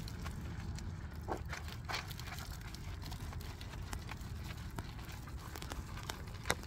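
Wet chenille microfiber wash mitt scrubbing a soapy alloy wheel: irregular soft squishes, rubs and clicks as it works around the spokes, with a sharper knock near the end, over a steady low hum.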